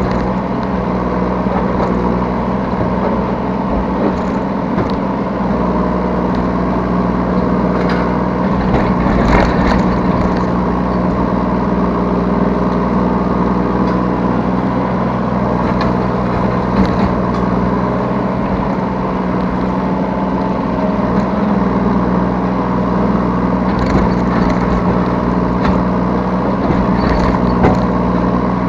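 Yanmar B3Σ 3-tonne mini excavator's diesel engine running steadily at working speed, heard from the operator's seat, with several brief clatters during the digging and loading.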